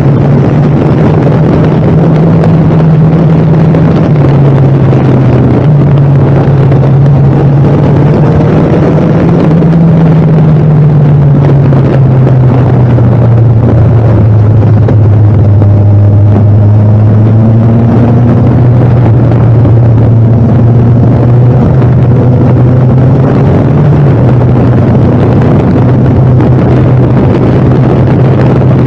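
A vehicle's engine running loud and steady while on the move, with wind on the microphone. Its low note shifts in pitch several times and sinks slowly in the middle as the speed changes.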